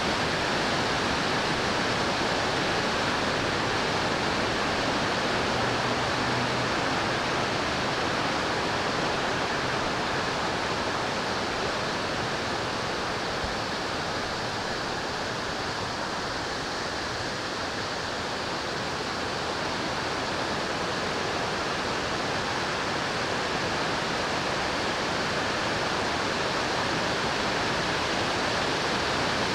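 Steady rush of falling water, a waterfall or fast creek, with an even hiss.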